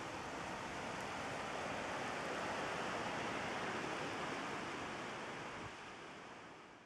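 A steady rushing hiss that fades out over the last second or so.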